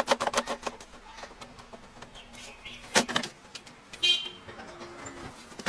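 Thermal label printer being handled while paper is loaded: a quick run of clicks, a single sharp click, then a brief pitched whir of its small paper-feed stepper motor about four seconds in.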